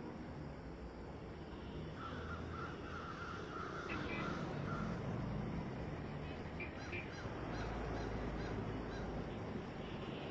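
Crow-like cawing bird calls in a quick series, clustered between about two and five seconds in, over a steady rumbling background.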